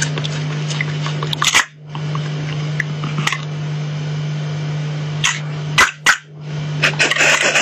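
Sharp plastic clicks from a hand-held dinosaur grabber toy snapping its jaws and arm, several times, over a steady low hum.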